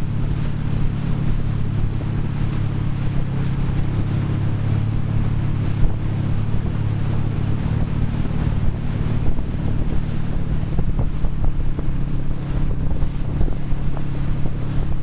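Motorboat engine running steadily while towing, heard from aboard the boat, with wind buffeting the microphone and the rush of the churning wake.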